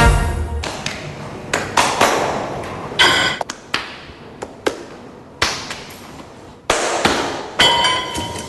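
Gym weights and machines clanking: about a dozen irregular sharp metal knocks, a few ringing briefly.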